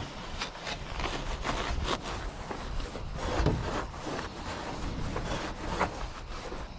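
Scrubbing of an aluminum jon boat hull: irregular rubbing and scraping strokes, a couple or so a second.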